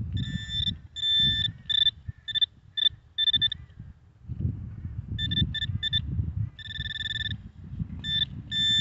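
Garrett pinpointer beeping as its tip is worked through the dug soil, signalling a buried metal target: a run of quick high beeps, a pause of about a second in the middle, then more beeps and longer held tones toward the end, over a low rumble.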